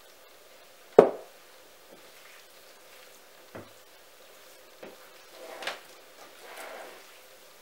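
A glass vinegar bottle set down on the table with a sharp knock about a second in, followed by a few light knocks and soft wet squelching as hands toss raw meat chunks in the vinegar marinade on a plate.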